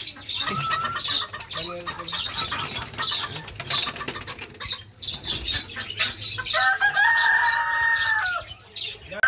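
Chickens clucking and wings flapping, then a rooster crows once, a long held call of about two seconds starting some six and a half seconds in.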